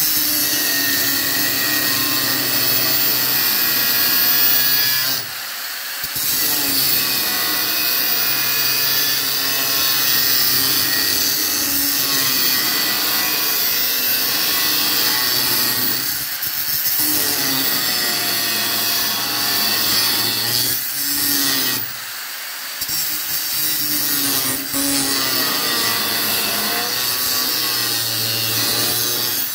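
Small angle grinder with a thin cutting disc cutting steel plate: a steady motor whine and the hiss of the disc biting into the metal. It eases off briefly a few times as the cut is guided around the curve.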